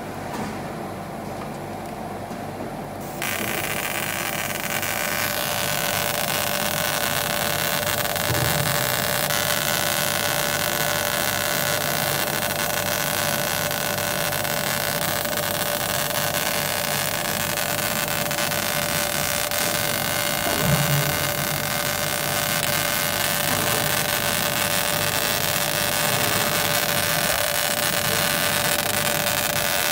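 CO2 galvo laser cutting machine running a paper-cutting job, a steady machine hum with a constant tone. About three seconds in, a rush of air noise starts and runs on as the cut gets under way, with a couple of faint low knocks.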